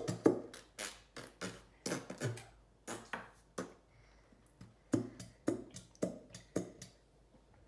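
A glue bottle being knocked and tapped against a bowl to get the last of the glue out. It makes a series of sharp knocks, about two a second, with a short pause midway, and they stop near the end.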